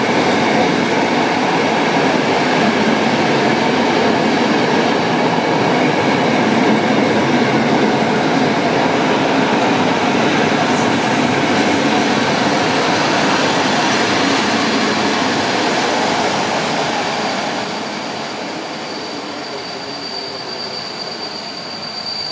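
PKP Intercity passenger coaches rolling past along the platform: a steady rush and rumble of wheels on rails. It fades over the last few seconds as the train draws away.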